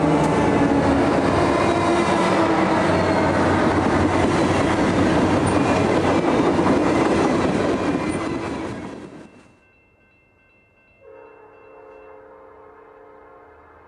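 Diesel freight train passing close by, its locomotives and then tank cars rolling over the rails, loud and steady until it fades out about nine seconds in. Near the end a fainter, steady pitched sound comes from a distant train approaching.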